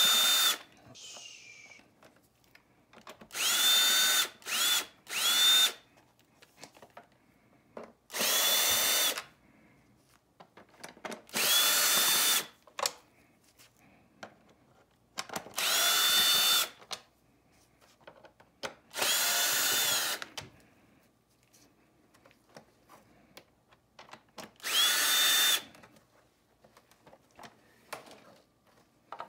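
Cordless 18V drill backing out Phillips screws from a vacuum cleaner's plastic base plate, in nine short runs of about a second each with quiet gaps between. At each run the motor's pitch climbs as it starts and falls away as it stops.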